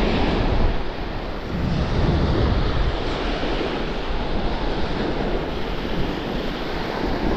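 Surf washing onto a shallow sandy beach, with wind rumbling on the microphone in gusts, heaviest in the first second.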